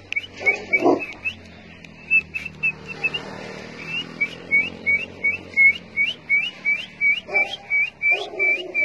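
A run of short, high chirping whistles, each a quick upward flick in pitch, repeated about three times a second and growing louder and more regular after the first few seconds.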